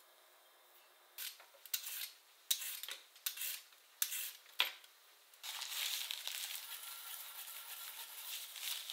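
A peeler scraping the skin off a Japanese mountain yam in about six short strokes, then, from about five and a half seconds in, a steady rasping as the peeled yam is grated against the ridged inside of a ceramic suribachi.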